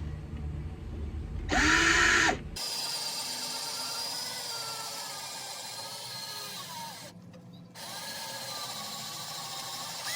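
Power drill drilling out the rivets on a school bus body panel's brackets. About a second and a half in there is a short, loud burst as the motor speeds up and slows down. Then comes a longer stretch of drilling with a wavering whine, which stops briefly about seven seconds in and starts again.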